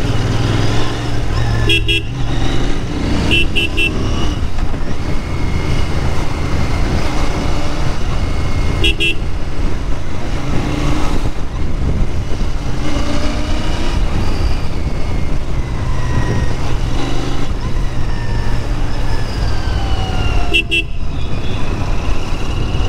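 Royal Enfield Interceptor 650's parallel-twin engine running through its stock exhaust while riding in traffic, its pitch rising and falling with the throttle. Short horn beeps sound several times.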